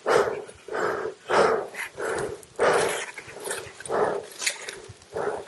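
A dog barking repeatedly in short, separate barks, about eight of them, spaced unevenly.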